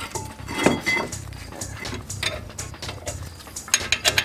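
Metal clinking and clicking of a wrench working on a WRX four-piston brake caliper as it is fitted and bolted onto the knuckle: one sharp knock a little under a second in, then a quick run of small clicks near the end, over a low steady hum.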